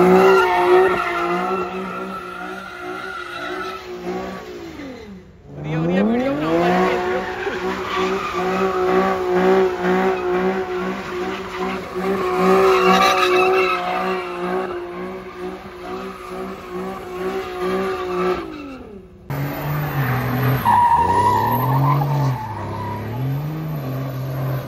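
Car engine held at high revs while its tyres spin and squeal. About five seconds in the revs drop briefly and climb straight back. Near the end the sound cuts abruptly to a lower engine note revving up and down.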